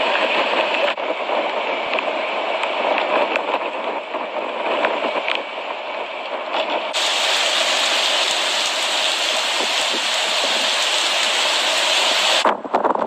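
Steady hiss of heavy storm rain. Its character changes abruptly twice, about a second in and about halfway, turning brighter and hissier in the second half.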